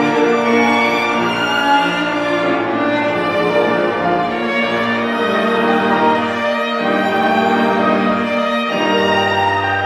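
Violin and cello of a piano trio playing classical chamber music, bowing long sustained notes.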